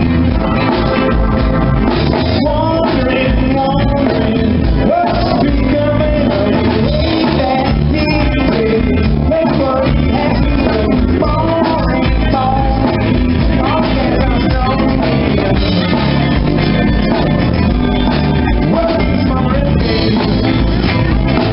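Live rock band playing, with a singer's lead vocals over electric guitars and a drum kit.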